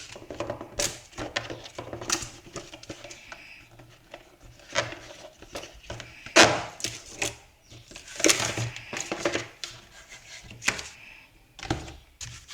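Unboxing packaging being handled: irregular rustling, scraping and light knocks of cardboard and paper inserts being lifted out of a box, over a faint steady low hum.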